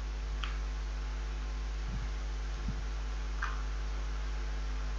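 Steady low electrical hum from the recording setup, with a few faint clicks and soft thuds.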